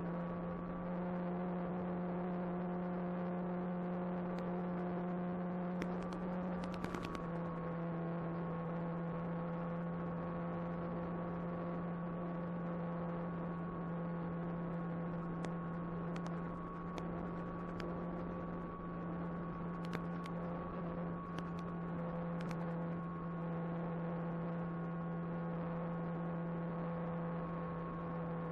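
Electric motor and propeller of an Apprentice 15e RC trainer plane running steadily in flight: a constant low hum with higher whine tones that shift slightly about seven seconds in as the throttle changes, with a few faint clicks.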